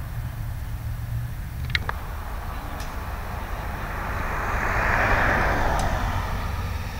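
Steady low engine rumble, with a passing vehicle's road noise swelling and fading about four to six seconds in. A few faint clicks.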